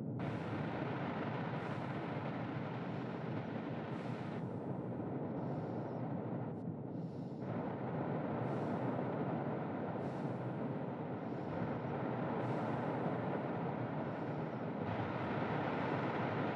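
Stormy-night ambience: a steady, dense rushing of wind and rain, with the higher hiss swelling and fading every few seconds.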